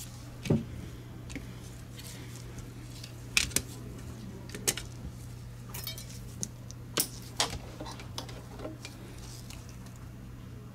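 Plastic clicks and knocks as the Logitech G Pro X Superlight mouse's shell and parts are handled and fitted back together: a handful of sharp taps, irregularly spaced, over a steady low hum.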